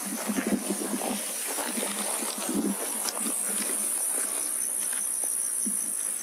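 A chorus of crickets chirring steadily and high-pitched. Low rustling and bumps, heaviest in the first three seconds, come as the rifle and thermal scope are moved about.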